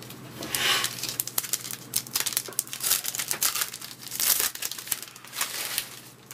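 Trading card pack wrapper being torn open and crinkled, in several rustling bursts with sharp crackles, as the cards are pulled out of the pack.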